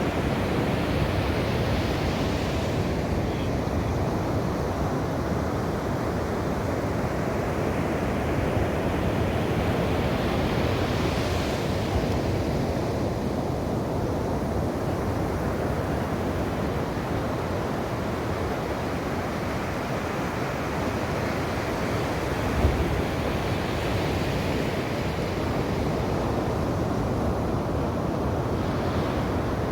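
Ocean surf: a steady low rumble of breaking waves, with a wave washing in about every nine or ten seconds. A single brief low thump comes a little past the middle.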